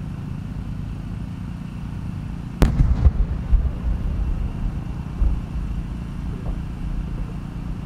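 A ten-inch (shakudama) chrysanthemum aerial shell bursting about two and a half seconds in: one sharp report, a second bang just after, then low rolling booms and echoes that fade over the next few seconds. A steady low background rumble runs under it.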